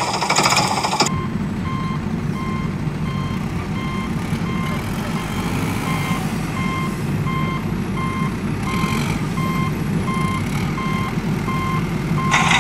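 Vehicle reversing alarm beeping steadily, about three beeps every two seconds, over a steady low engine-like rumble, as on a backhoe loader or dump truck. Short bursts of rushing, hissing noise come in during the first second and again near the end.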